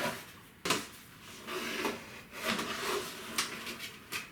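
Server case cover panel being slid along the case: scraping and rubbing, with a sharp click near the start and another in the second half.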